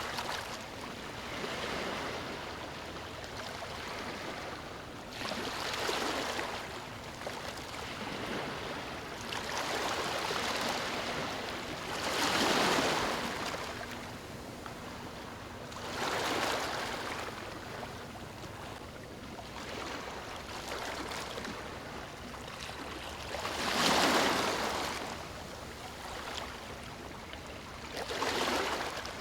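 Ocean waves breaking on a sandy beach, a swell of surf washing in every four to six seconds over a steady background hiss of water.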